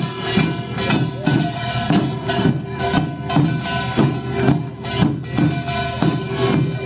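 Korean pungmul folk percussion band playing: drums and ringing gongs beating out a steady rhythm, about one strong stroke a second.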